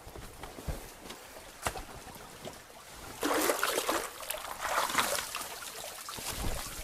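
Dry reed stems rustling and clattering as an armful of cut thatching reed is gathered from a pile, in loud bursts from about three seconds in. Before that, only a faint trickle of running water.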